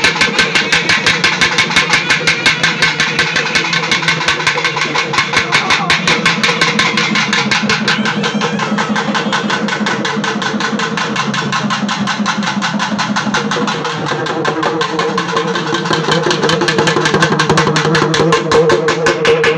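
Fast, even drumbeats, about seven a second, over a steady sustained drone: traditional Tamil ritual drumming played during a deity-invocation puja.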